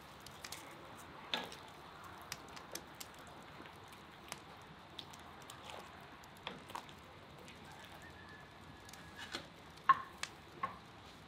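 Meat broth simmering in a cast-iron kazan over a fire: a faint steady hiss with scattered small pops and crackles, the sharpest a few near the end.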